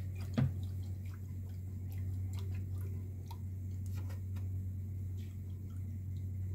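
Silicone-coated wire whisk stirring milk and flour for a béchamel in a saucepan, ticking lightly and irregularly against the pan, with one sharper knock about half a second in. A steady low hum runs underneath.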